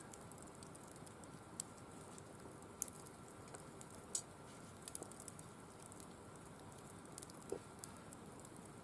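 Firewood burning in a wire-mesh fire pit: faint, irregular crackles and sharp pops over a low steady hiss, the loudest snaps a little under 3 seconds and about 4 seconds in.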